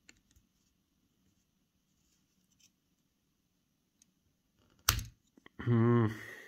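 Fine pliers working a press-on washer off a plastic gear shaft in a cassette deck transport: faint small clicks of tool on part, then one sharp snap about five seconds in as the tight washer comes free. A man's short, wavering voiced exclamation follows.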